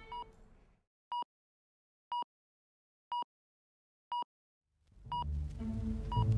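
Short electronic beeps, one each second, all on the same high tone. Background music with a bass line comes in about five seconds in, and the beeps carry on over it.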